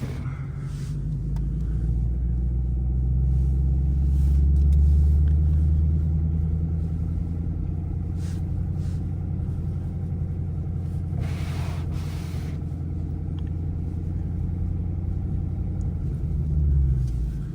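Ford S197 Mustang's V8 engine running at low revs as the car moves slowly, a deep steady drone that swells for a few seconds and then settles back. A brief hiss comes about two-thirds of the way through.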